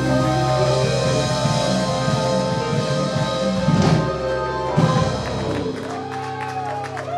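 Instrumental music with sustained notes and a few drum hits; the bass drops out about three-quarters of the way through.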